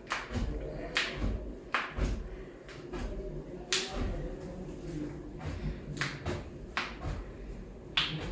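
Sharp slaps or taps of hands on the body, about eight of them, spaced irregularly roughly a second apart.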